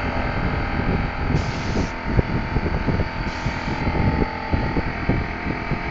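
A pressurized sprayer misting anti-corrosion coating onto mini-split coils, heard as two short hisses about two seconds apart, over a steady low rumble.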